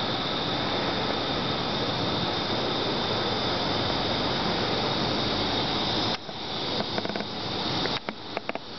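Loud, steady rushing air noise with a bright high hiss, which drops away suddenly about six seconds in; after that it is quieter, with scattered clicks and knocks, more of them near the end.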